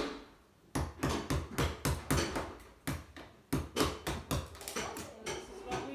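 Hammer striking a plaster wall in demolition: a fast, irregular run of sharp knocks, about three a second, starting about a second in.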